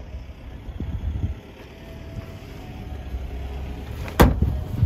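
A car trunk lid being shut: one loud thud about four seconds in, followed by a smaller click, over a low steady rumble.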